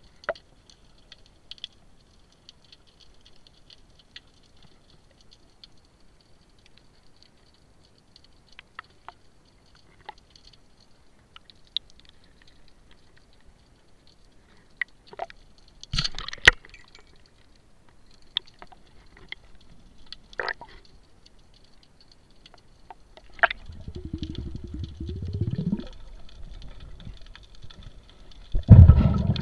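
Underwater sound on a spearfishing dive: scattered clicks and snaps over a faint steady high hiss, a low rumble building up a few seconds before the end, then near the end a loud sudden thump as the speargun, a Cressi rubber-band gun with a homemade carbon pulley (inverter) head, is fired, followed by churning water noise.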